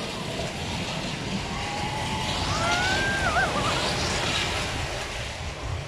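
Steel roller coaster train running along its track, a steady rumbling rush, with one brief high-pitched cry that rises and then wavers about halfway through.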